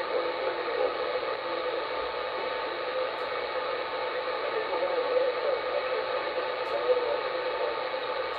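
CB radio receiver on channel 38 (27.385 MHz) giving out steady static, with a faint wavering undertone of weak distant signals in the noise.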